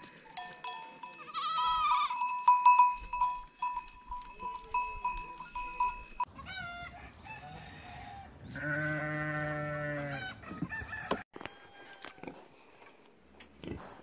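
Goats bleating, with a steady high ringing tone under them. Then sheep calling: a few short bleats and one long, deep baa of about a second and a half, just past the middle.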